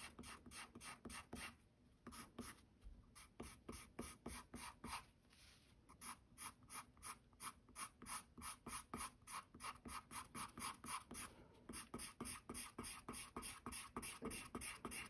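Prismacolor colorless blender pencil burnishing colored pencil on toned mixed-media paper: faint, quick strokes, about three a second, with short pauses about two and five seconds in.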